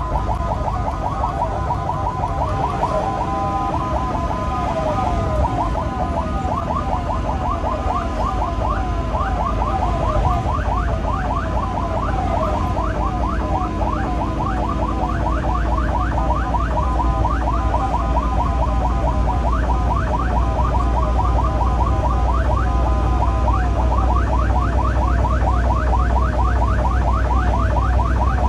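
Ambulance's electronic siren in a fast yelp, sweeping up and down several times a second without a break, heard from inside the cab over a steady low rumble of engine and road noise.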